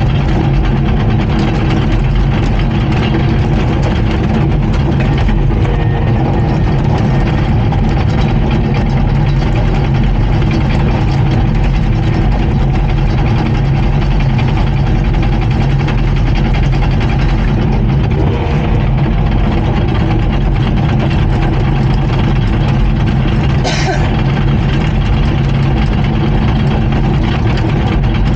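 Komatsu D39PX crawler bulldozer's diesel engine running steadily. A single short click or knock about 24 seconds in.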